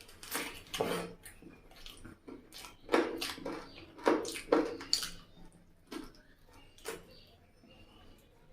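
Close-up eating sounds: wet chewing and mouth smacking on curry and rice, in irregular bursts that are loudest about three to five seconds in and sparser near the end.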